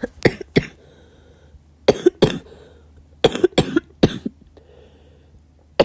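A girl coughing in fits: two coughs, then three, then a run of four.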